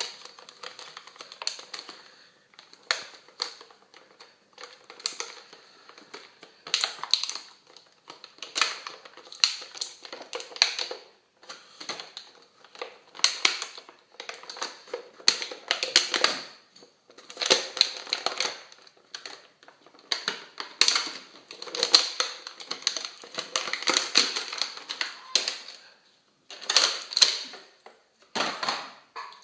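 Plastic toy packaging being handled: irregular crinkling and crackling as an action figure is worked free of its plastic tray, in short spurts with brief pauses.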